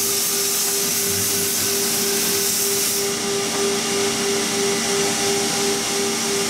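Workshop machinery running steadily: an even hiss with a hum whose tone pulses slightly and regularly.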